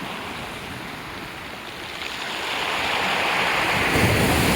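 Aegean Sea waves breaking as surf: a hiss of moving water that swells from about two seconds in and is loudest, with a low rumble, near the end.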